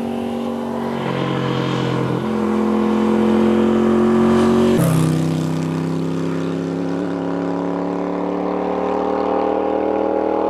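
Moto Guzzi Le Mans 850 cafe racer's air-cooled V-twin engine pulling under acceleration. The pitch rises, drops sharply at an upshift about five seconds in, then climbs slowly again.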